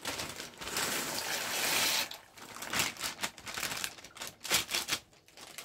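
Dry macaroni poured from a plastic packet into a pot of boiling water: a dense rush of pasta and splashing for about two seconds, then scattered patters and crinkling of the plastic packet as the last pieces are shaken out.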